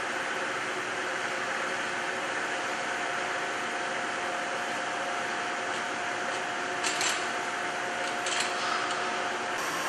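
Steady hum of factory machinery with a steady tone in it, broken by two brief knocks about seven and eight and a half seconds in. The tone stops just before the end.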